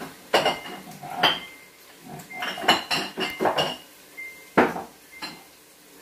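Containers clinking and knocking against each other and the shelf as a kitchen wall cupboard is rummaged through: a string of irregular clinks, some with a short ring, clustered about two to four seconds in.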